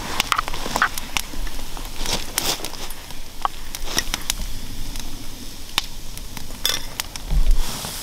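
Campfire crackling with irregular sharp pops and clicks, while a metal spoon scoops cooked rice from an enamel pot into a wooden bowl; a dull thump near the end.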